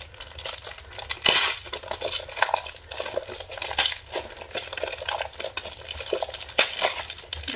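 Bubble wrap and plastic packaging crinkling and rustling as a package is unwrapped by hand, with irregular crackles and small clicks throughout.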